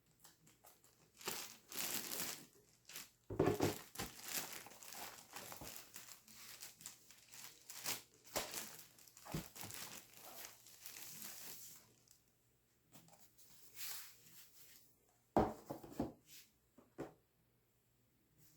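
Laptop packaging being unwrapped by hand: crinkling and tearing in bursts through roughly the first twelve seconds, then a few brief handling sounds. Two dull knocks stand out, the louder one near the end.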